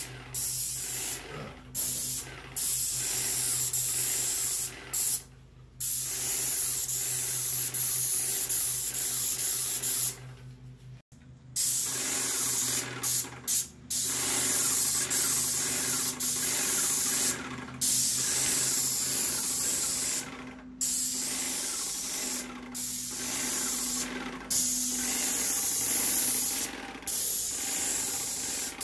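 Paint spray gun on an airless sprayer hissing as it sprays onto plywood, in long passes that break off briefly several times when the spray stops. A steady low hum runs underneath.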